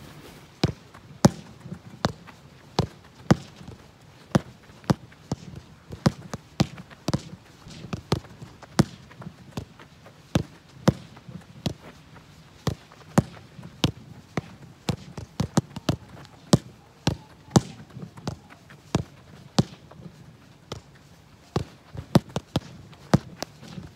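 A football kicked again and again against a rebound wall: a steady series of sharp thuds, boot on ball and ball striking the board, often in quick pairs, about one or two a second.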